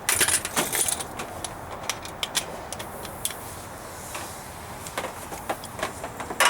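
Metal tools and parts clinking and rattling as they are handled, a dense cluster of clinks in the first second, then scattered single clicks.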